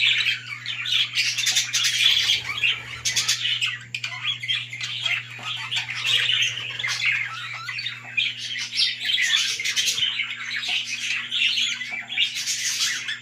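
Budgerigars chattering and squawking, many birds at once and without a break, over a steady low hum.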